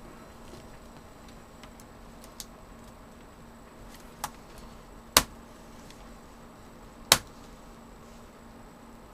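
Sharp plastic clicks and snaps as a laptop keyboard is pried out of its bezel and its retaining clips release: a couple of small ones, then two loud snaps about five and seven seconds in.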